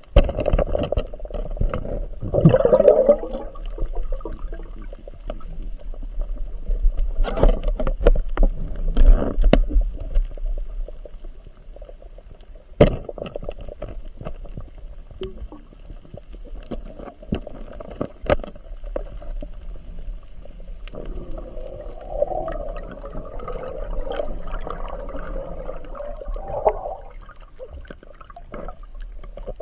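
Water gurgling and sloshing over a steady low rumble, busiest in the first ten seconds, with a few sharp knocks (one about 13 seconds in, another about 18 seconds in).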